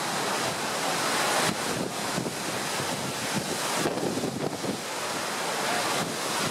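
Wind buffeting the microphone over the rushing of a rough sea with whitecapped waves, rising and falling in gusts.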